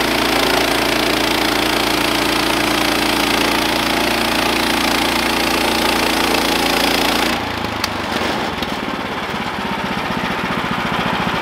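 Woodland Mills portable bandsaw sawmill cutting through a log, its gas engine running under load with the band blade's hiss. About seven seconds in the cut finishes and the noise drops suddenly, leaving the engine running on its own.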